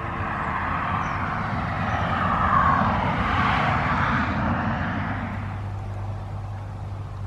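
A motor vehicle passing by, its noise swelling to a peak about two and a half seconds in and then slowly fading away.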